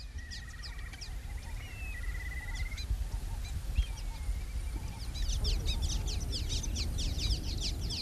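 Small birds calling: a fast trill in the first few seconds, then from about five seconds in a dense run of short, high, down-slurred chirps, as from a flock. A low rumble runs underneath.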